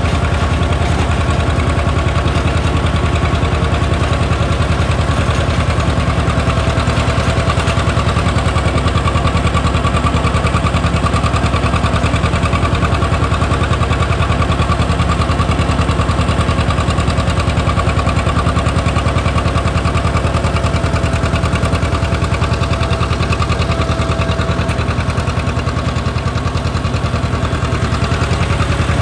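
John Deere 630 two-cylinder tractor engine running steadily as the tractor drives, heard close up from the driver's seat.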